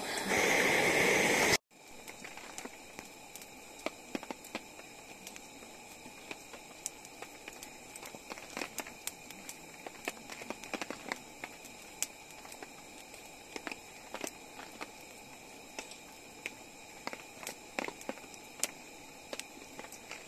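A single-burner pressurized camp stove hissing loudly for about a second and a half, cut off abruptly. Then a wood fire crackles, with frequent sharp, irregular pops over a faint steady hiss.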